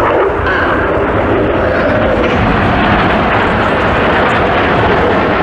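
Jet noise from a formation of BAE Hawk T1 jets flying overhead, a loud, steady rush that keeps up without a break.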